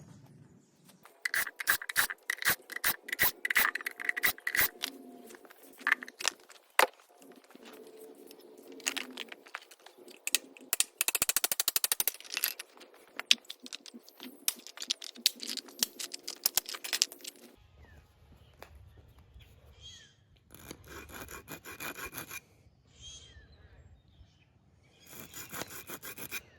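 Hand tools working on scrap HVAC metal parts: a string of sharp metallic clicks, taps and scrapes, with a fast rattling run of clicks about halfway through. A low hum sets in after about two-thirds, with two more short rattling runs near the end.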